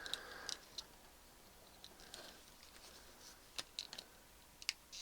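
Faint, scattered light clicks and taps of multimeter test probes being set on the pins of a small double-pole switch, a cluster of them at the start and a few more near the end.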